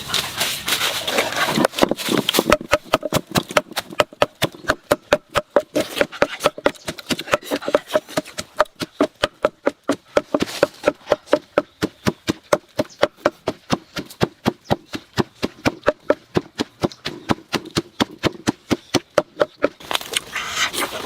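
Rapid, steady chopping, about four strokes a second, as a blade cuts on a board. It starts about two seconds in and stops near the end.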